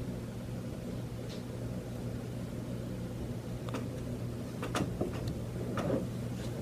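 Steady low hum of room tone, with a few faint soft clicks and rustles from the middle on as the handheld camera is moved close to a face.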